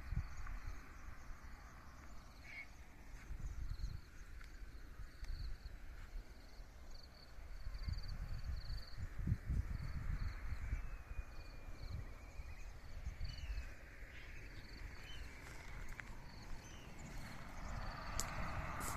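Rural outdoor ambience: small insects or birds chirping in short, high, repeated notes, with a bird call gliding in pitch about eleven seconds in. Under it runs an uneven low rumble, and a steady hiss grows louder near the end.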